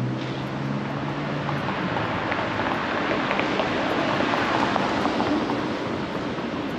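Street traffic passing: a vehicle's engine hum fades out in the first second and a half, then road noise swells to a peak about four to five seconds in and eases off.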